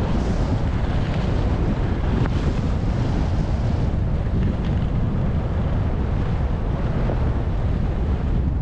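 Wind buffeting the microphone of a camera moving fast downhill: a steady, loud, low rumble of rushing air.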